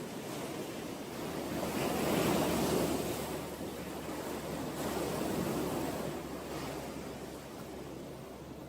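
Sea waves washing onto the shore, surging about two seconds in and again around five seconds, then ebbing toward the end.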